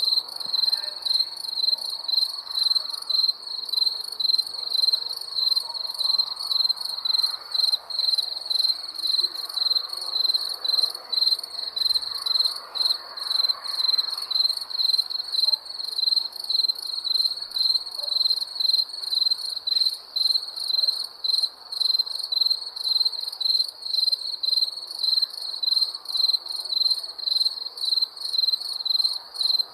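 Crickets chirping in a steady, even rhythm of quick high-pitched pulses, over a faint background hiss.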